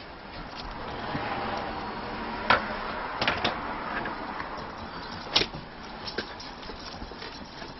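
Glass storm door being opened: the latch and frame click and knock a few times over a rustling haze, with the sharpest clicks about two and a half and five and a half seconds in.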